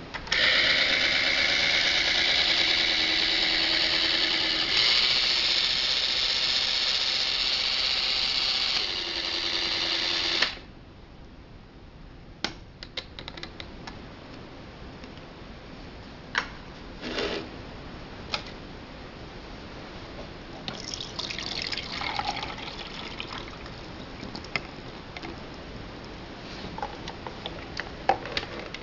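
Coffee maker running, with liquid pouring, for about ten seconds before it cuts off suddenly. Scattered small clicks and knocks follow.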